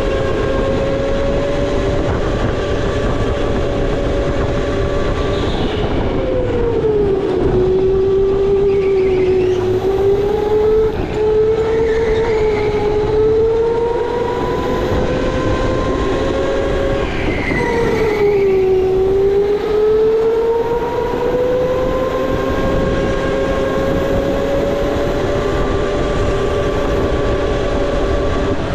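Electric go-kart motor whining under the driver, its pitch falling as the kart slows for a corner about six seconds in and again around eighteen seconds, then climbing back as it speeds up on the straights, over steady tyre and track noise.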